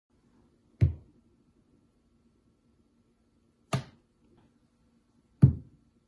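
Green-cheeked conure bonking, knocking its head and beak down onto a laminate countertop three times, each a sharp knock with a dull thud, the second a little softer.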